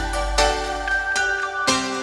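Background music: sustained chords with notes struck about every half second over a deep bass.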